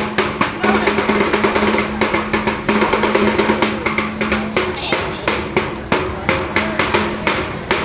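Drums and other percussion struck in a rapid, irregular rhythm, several hits a second, over a steady held low tone.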